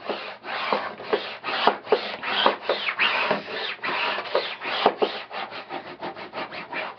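A flat scraper rubbed hard back and forth over an adhesive sheet on temporary tattoo paper, in rapid scratchy strokes several times a second. This is the burnishing step that presses the adhesive onto the printed images. The rubbing stops just before the end.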